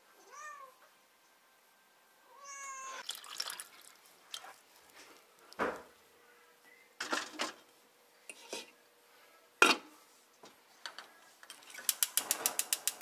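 A domestic cat meows twice in the first few seconds, with short calls that bend up and down in pitch. A few single knocks follow as a steel rice pot is handled on the gas hob. Near the end comes the rapid, even clicking of a gas stove's spark igniter as the burner knob is turned.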